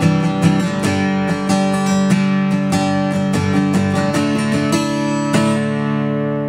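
Steel-string acoustic guitar strummed with a 0.73 mm nylon pick through a D, C, G chord progression in a quick run of strokes. About five seconds in the last chord is struck and left to ring and fade.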